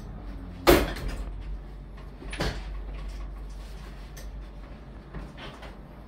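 Hi-lo chiropractic table tilting down from upright to flat with the patient on it: a loud mechanical clunk about a second in, a second clunk a couple of seconds later, then lighter knocks, over a steady low hum.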